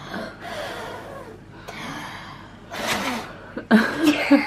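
A person's breathy gasps and huffs, followed near the end by several loud, short vocal exclamations.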